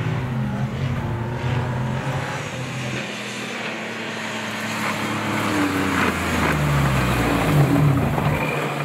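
Off-road 4x4's engine revving, its pitch rising and falling repeatedly. It is loudest about seven to eight seconds in.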